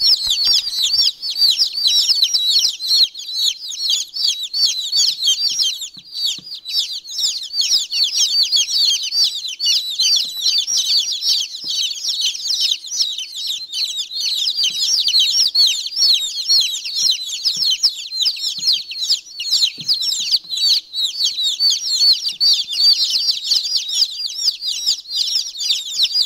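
A brood of baby chicks (a mixed batch of Ameraucana, Silkie bantam, Brahma, New Hampshire Red and Cochin bantam chicks) peeping nonstop, many high, short peeps overlapping into a constant chorus.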